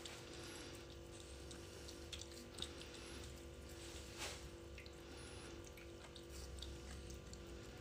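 Cat eating wet cat food from a hand: faint wet smacking and licking clicks, a few of them sharper, over a steady low hum.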